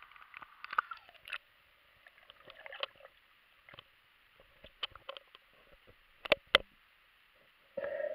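Underwater sound picked up by an action camera in its waterproof housing as it goes below the surface: scattered sharp clicks and knocks with soft gurgles. The two loudest clicks come close together a little after six seconds.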